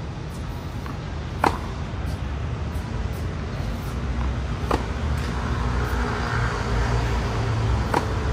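Tennis racket striking a ball on one-handed backhand groundstrokes: three sharp pops about three seconds apart, the first the loudest. A steady low rumble of outdoor background noise runs underneath.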